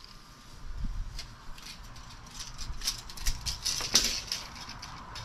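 Small irregular clicks and rattles of a steel tape measure being handled and set down on a steel workbench, with one sharper click about four seconds in.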